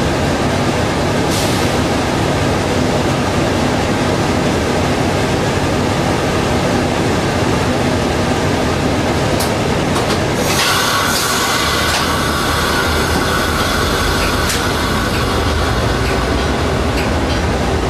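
Coaster commuter train heard from inside its leading cab car: a steady train rumble while it barely moves. About ten seconds in, a high steady whine and squeal join, and a low engine rumble rises as the train begins to roll forward.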